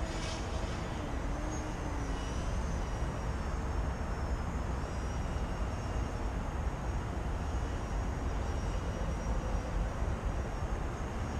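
Small electric RC airplane, a brushless motor with an 8-inch propeller, giving a faint whine that wavers up and down in pitch with the throttle as it flies at a distance. A loud steady low rumble lies underneath it.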